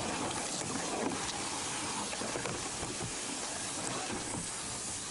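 Steady outdoor hiss with a few faint ticks and rustles scattered through it.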